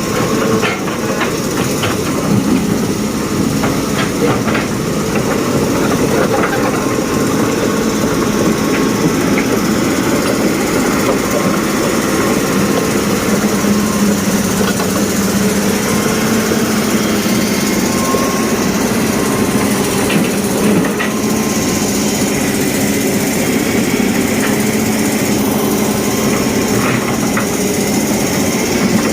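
Small electric motors and gearboxes of radio-controlled model construction vehicles running steadily with a whirring drone, with scattered light clicks and ticks of plastic parts.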